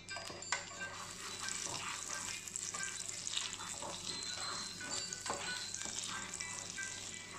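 Butter sizzling and crackling as it melts and foams in a hot non-stick frying pan, with a plastic spatula pushing it around the pan. There is a sharp knock about half a second in.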